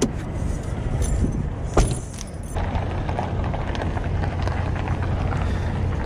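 A door shuts with a sharp clack about two seconds in, and keys jangle, over the low steady rumble of vehicles.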